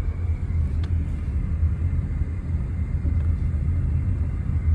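Steady low rumble of a car driving slowly, heard from inside the cabin, with one faint tick about a second in.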